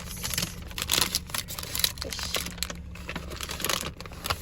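Irregular crinkling and rustling with light clicks, as of something being handled, in short uneven bursts.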